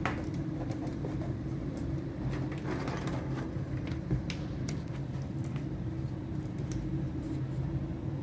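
Scattered light clicks and taps of plastic TV frame parts and clips being handled and pried loose, over a steady low hum.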